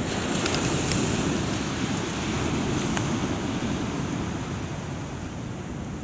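Surf washing on the shore with wind, a steady rush, and a few faint sharp pops from a wood campfire crackling.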